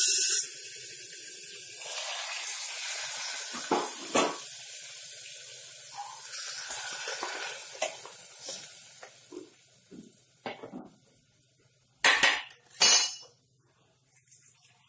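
Soaked rice and tuvar dal going into hot ghee-and-oil tempering in a steel pressure cooker: a sizzle that fades over the first several seconds. A spoon then scrapes and knocks against the steel bowl and the cooker, with two sharper clinks near the end.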